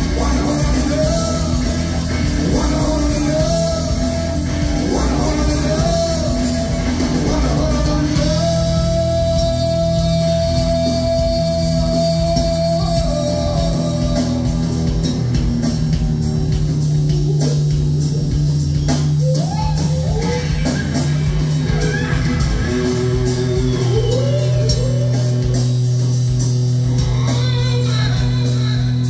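Live rock band playing: electric guitars, electric bass and drum kit, with a lead line that bends between notes and holds one long note near the middle.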